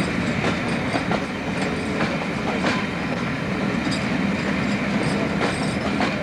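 A train of passenger coaches rolling past, its wheels clicking irregularly over rail joints and pointwork above a steady rumble.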